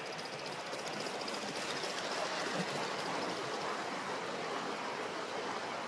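A 1/30th scale live steam model locomotive running: a steady hiss, with a faint, rapid, even ticking that fades out about halfway through.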